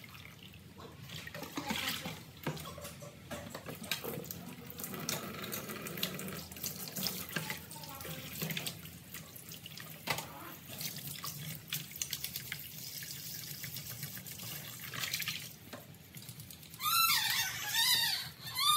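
Tap water running into a plastic basin in a sink, with splashing and sloshing as hands rub and swish pig stomach and intestines in the water. Near the end, several short high-pitched cries come in louder than the water.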